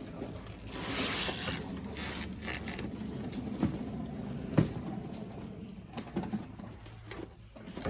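Cardboard boxes and packaging being handled: a rustling, scraping rush about a second in, then a few scattered knocks, the sharpest about four and a half seconds in.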